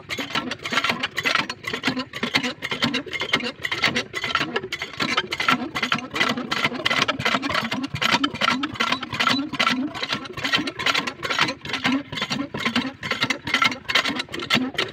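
Small engine driving an irrigation water pump, running steadily with an even, rapid beat.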